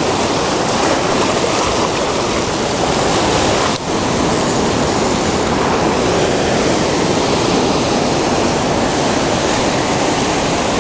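Ocean surf breaking and washing over lava rocks, a steady loud rush of whitewater, with one brief dip just under four seconds in.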